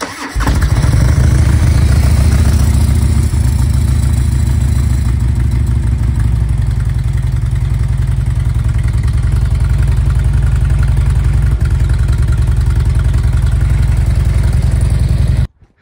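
Cold start of a 2005 Harley-Davidson Electra Glide's stock, fuel-injected 88-cubic-inch Twin Cam V-twin: it cranks briefly, catches within half a second and settles into a loud, steady idle. The sound cuts off suddenly near the end.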